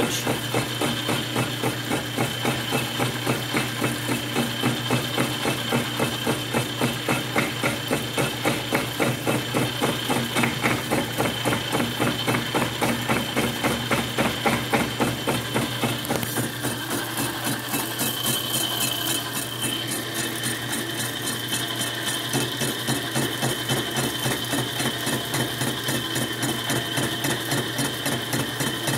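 Metal lathe running under a cut on a steel workpiece, with a fast, even knocking about five times a second that goes on throughout. A thin high squeal comes in for a few seconds past the middle.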